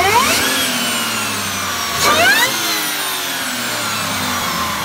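Engine revving twice: each rev climbs quickly in pitch, then falls away slowly as it winds down.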